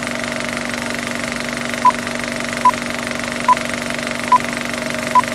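Film-leader countdown effect: a steady mechanical clatter like a running film projector, with a short high beep for each number of the countdown. Five beeps come about 0.85 s apart, starting about two seconds in.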